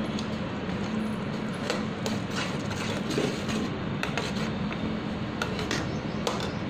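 Cream-and-curd gravy cooking in a pan while it is stirred, the spoon and spatula scraping and clicking against the pan every second or so over a steady hiss and low hum.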